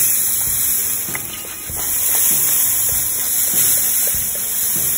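Steady spraying hiss as apple juice is spritzed onto baby back ribs hanging in an open charcoal drum smoker, easing briefly about a second and a half in. A few faint ticks sound under it.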